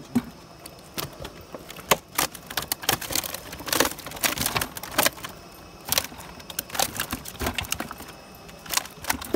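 Live tilapia flapping and slapping against a plastic basin as they are handled, an irregular run of quick wet slaps and knocks coming in short spells.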